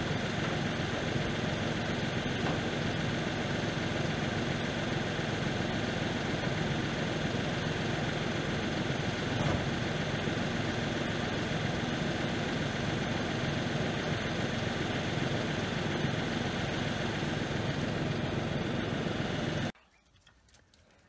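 New Holland loader tractor's engine idling steadily, then cutting off abruptly near the end.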